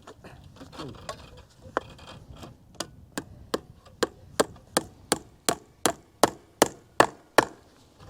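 A few scattered knocks, then from about three seconds in a steady run of hammer blows, nearly three a second, growing louder.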